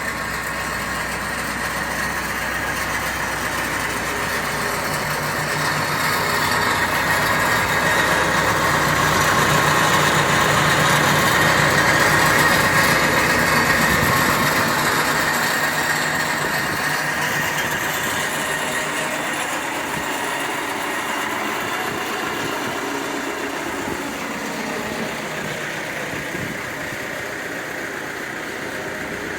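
Terex 860 backhoe loader's diesel engine idling steadily, growing louder about ten seconds in and then easing off again.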